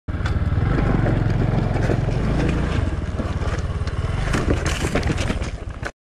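Single-cylinder four-stroke engine of a Bajaj Boxer 150X motorcycle running with a steady pulse while riding over a loose gravel track, with gravel crunching and rattling under the tyres. The sound cuts off abruptly near the end.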